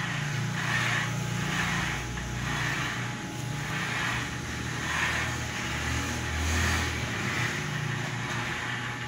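Stepper motors of a homemade CNC plasma table driving the gantry, a steady low hum that jumps to a new pitch every second or two as the moves change.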